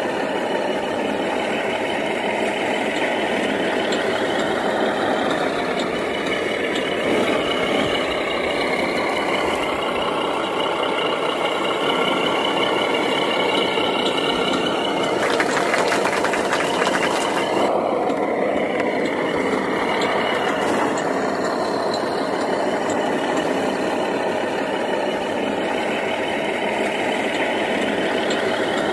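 A 1/14-scale radio-controlled Mercedes 2638 log truck running as it is driven, a steady engine-like drone whose pitch rises and falls. About fifteen seconds in, a hiss lasts for about two seconds.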